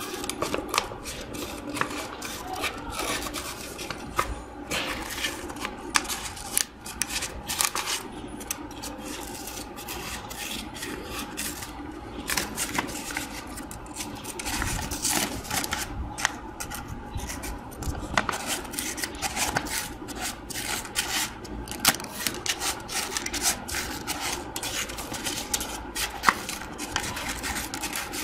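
Scissors cutting a sheet of creased paper into a circle: a string of irregular snips with the paper rustling and crinkling as it is handled and turned.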